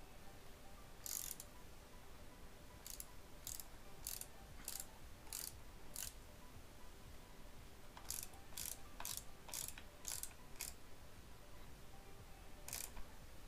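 A small hand ratchet fitted with a 6 mm Allen bit clicks faintly as it is swung back and forth, tightening the bolt of a protector bobbin on a motorcycle's rear axle. Short ratcheting rasps come about every half second, in two runs of about six with a pause between, plus a single one near the start and another near the end.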